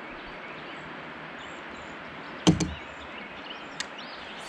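A sharp, hollow knock of gear against the plastic kayak hull about halfway through, with a lighter click right after it and another small click near the end. Under it runs a steady outdoor hiss with faint bird chirps.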